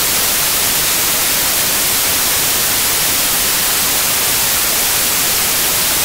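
Television static: a steady, even hiss of white noise.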